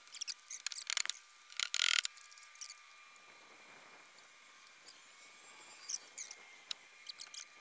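Small clicks and rustles of hands working a black plastic penstock pipe and its threaded fittings among leaf litter, busiest in the first two seconds and then only a few scattered ticks.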